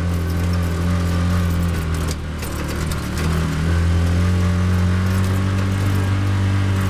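Car engine running steadily with a low hum, getting slightly louder about halfway through.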